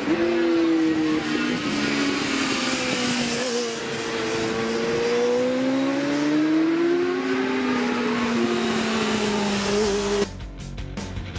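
Racing motorcycle engines running hard as bikes come past on the road circuit, their pitch sliding down, up and down again. About ten seconds in the engine sound cuts off abruptly and music with a beat takes over.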